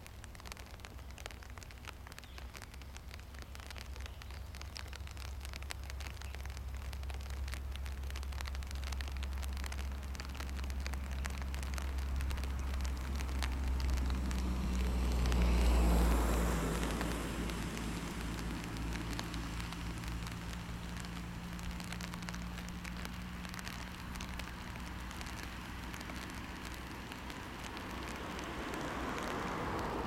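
Outdoor ambience: a low rumble and crackle of wind on the microphone, with a vehicle passing on a nearby road that swells to its loudest about halfway through and then fades. Another vehicle approaches near the end.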